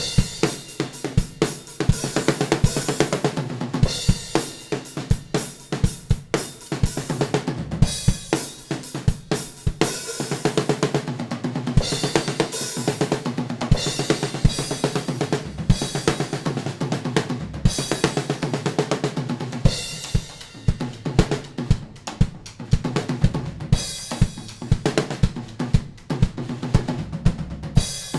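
Drum kit played at a busy, fast rhythm, with bass drum, snare and cymbal strikes following close together throughout.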